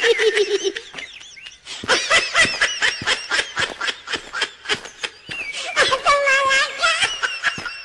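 A cartoon character's voice laughing in a long run of rapid, repeated bursts, after a short pause about a second in.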